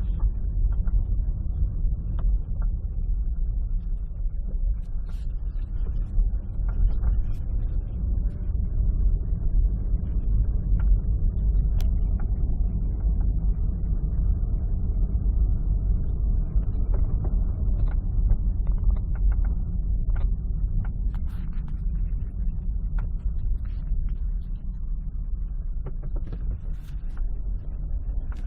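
Steady low rumble of a Hyundai Accent's cabin on the move, road and engine noise, with scattered faint ticks and creaks from the interior trim.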